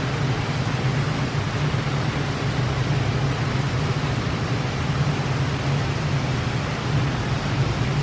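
Steady outdoor ambience beside a city water fountain: an even rushing noise over a constant low hum, with no distinct events.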